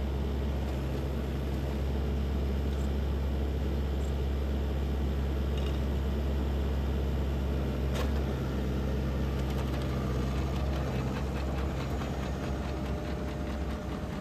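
Vermeer horizontal directional drill rig's engine running steadily with a low hum, and a single sharp click about eight seconds in.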